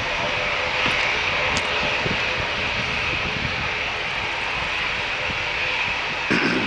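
Jet airliner engines running steadily at low taxiing power: a continuous rush with a steady whine on top.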